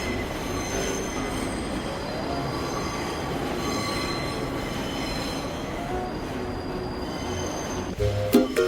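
Steady mechanical rumble and hiss with thin, high-pitched squealing tones held over it, like rail wheels squealing. Plucked ukulele-like music comes in near the end.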